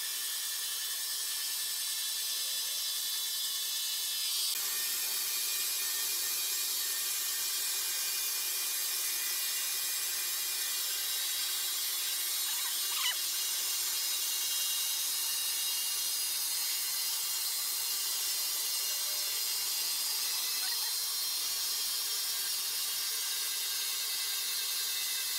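Band saw blade of a horizontal log bandsaw mill cutting lengthwise through a large hardwood log, making a steady high hiss. One short squeak comes about halfway through.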